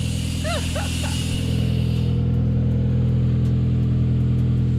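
Honda City GD's engine idling with a steady low hum, and a hiss that cuts off about two seconds in.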